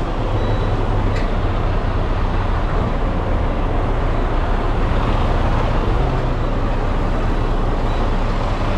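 Semi-truck diesel engine idling, a steady low rumble, heard from beside the open cab door.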